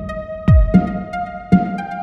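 Electronic background music: two deep kick drums that fall in pitch over a steady bass line, with a held synth note stepping upward in pitch.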